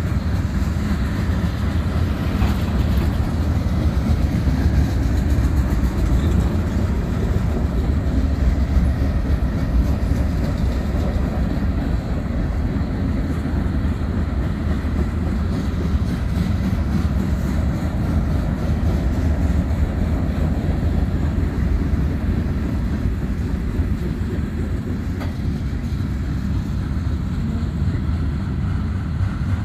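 Freight train's tank cars, covered hoppers and flatcars rolling past at speed: a steady, loud rumble of steel wheels on the rails, with light clicking over the rail joints.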